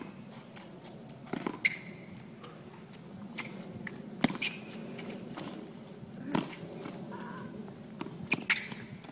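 Tennis ball struck softly back and forth with racquets in a mini-tennis rally: sharp pops, one every second or two.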